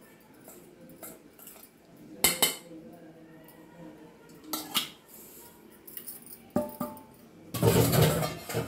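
A metal spatula clinks and scrapes against a steel plate and pan as ground powder is pushed off into milk. There are a few separate sharp clinks, then a louder stretch of scraping and clattering near the end.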